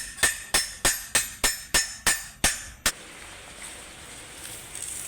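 A hammer striking a metal part in a steady run of about three blows a second. Each blow rings, and the hammering stops about three seconds in.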